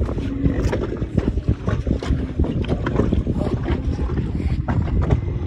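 Wind buffeting the microphone on a boat at sea, a dense low rumble broken by frequent short slaps and knocks, likely water against the hull.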